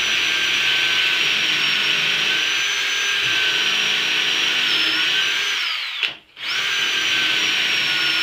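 Cordless drill spinning a Kreg step bit through scrap pine in a Kreg pocket-hole jig: a steady high motor whine. Around five and a half seconds in it winds down and stops for about half a second, then starts again at full speed.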